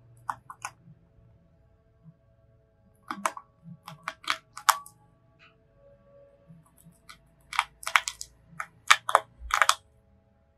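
Hamster gnawing a toasted rice cracker with peanuts, heard close up: irregular runs of small, sharp crunches, the loudest bunched in the last few seconds.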